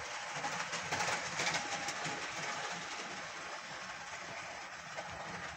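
Model railway locomotive running on the track: its small electric motor whirs and its wheels click along the rails. It is loudest a second or two in as it passes close, then carries on more quietly.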